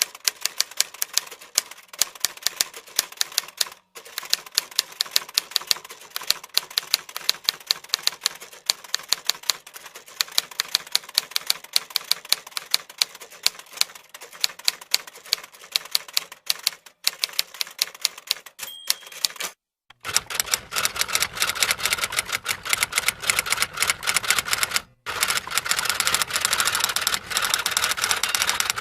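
Typewriter keys clacking in quick, irregular runs, broken by a few short pauses. A little past halfway a short ringing tone sounds, and in the last third the typing comes denser and fuller.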